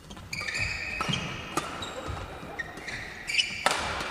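Badminton rally: sharp racket hits on the shuttlecock, about four in a few seconds, with sneakers squeaking on the court mat between them.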